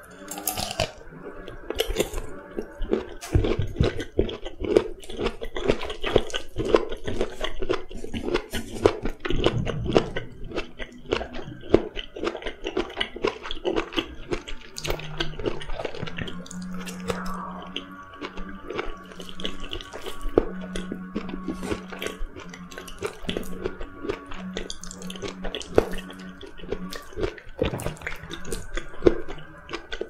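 Close-miked chewing: crunchy bites and chewing of a carrot, dense through the first half, then softer, wetter chewing of cooked kabocha squash.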